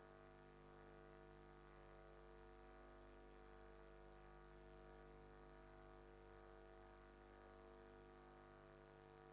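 Near silence: a faint, steady electrical hum with a high, thin whine above it.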